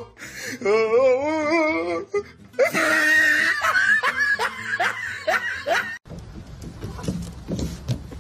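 A person laughing in wavering peals, then a quick string of short falling laughs. About six seconds in it cuts off, giving way to a quieter low rumbling noise.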